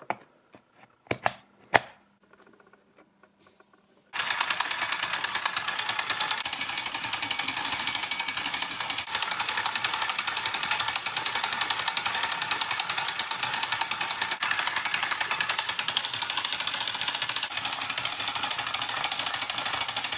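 Two sharp clicks, then, about four seconds in, the 1920s Alef Privat portable film projector starts running with a loud, fast, steady mechanical clatter from its film-advance mechanism.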